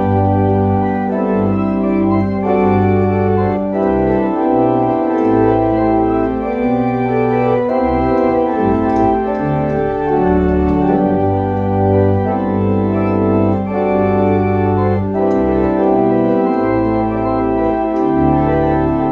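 Organ playing the outro hymn music: slow, held chords that change every second or two over a moving bass line.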